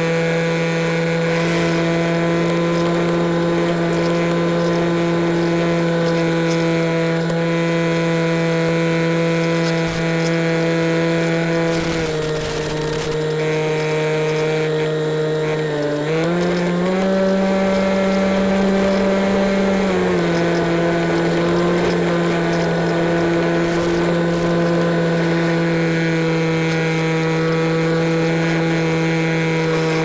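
Electric motor and pusher propeller of an EasyStar RC plane droning steadily, heard from on board the plane. The pitch dips slightly about twelve seconds in, rises for a few seconds around sixteen seconds, then settles back as the throttle changes.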